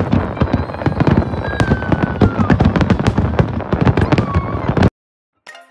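Fireworks display: a dense stream of bangs and crackles, with a couple of thin whistles over it, cutting off abruptly about five seconds in. Soft music starts just after.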